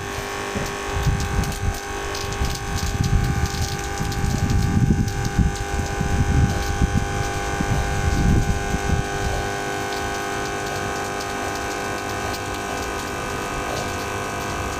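Vibratory submersible water pump running on its first test after its gaps were adjusted, giving a steady electric buzz. Irregular low rumbling sits under the buzz for about the first nine seconds. The pump is working properly again, 'like new'.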